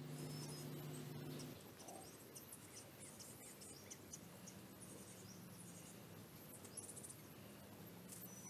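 Faint, high-pitched peeps and short chirps from a flock of chukar partridges, scattered and irregular. A low steady hum underneath stops about a second and a half in.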